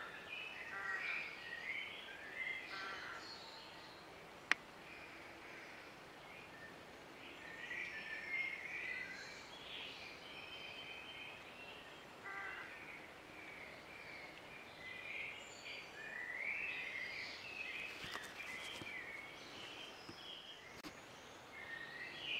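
Songbirds singing, with repeated warbling phrases and short trills, over a faint steady hiss. A single sharp click comes about four and a half seconds in.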